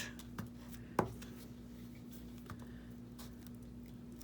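A few light clicks and taps of paper craft pieces and tools being handled on a work table, the clearest about a second in, over a faint steady hum.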